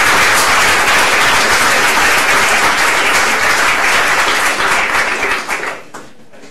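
Audience applauding, the clapping dying away after about five and a half seconds.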